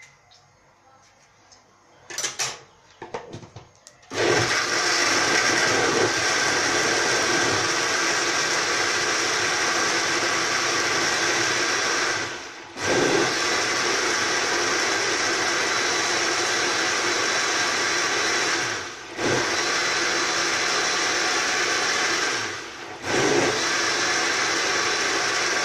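Electric mixer-grinder (blender) jug grinding chopped tomatoes and onions into a gravy masala paste. A few knocks as it is set going, then the motor runs loud and steady, stopping briefly and restarting three times.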